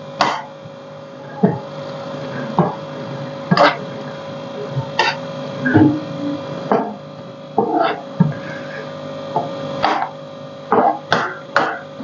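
A steel spatula stirring a thick creamy vegetable sauce in a wok, knocking and scraping against the pan about once a second, at irregular intervals. A steady hum runs underneath.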